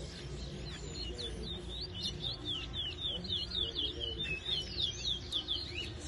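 Caged towa-towa (chestnut-bellied seed finch) singing a fast song of short, down-slurred whistled notes, several a second, a competition bird whose songs are being counted in a singing race.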